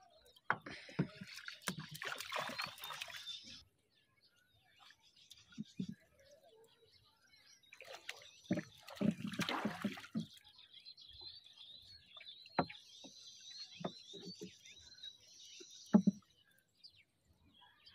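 Gill net being hauled in over the side of a wooden boat: water splashing and dripping in two bursts, with a few short knocks. From about halfway, a bird sings a run of quick high chirps.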